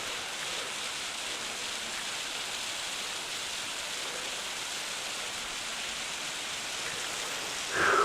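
Steady rushing of a mountain waterfall, Helen Hunt Falls, an even watery hiss. Near the end a brief, louder sound breaks in.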